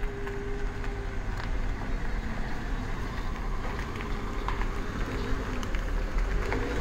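Mercedes-Benz SL500's V8 engine running as the car creeps slowly forward, a steady low engine sound with a few small clicks over it.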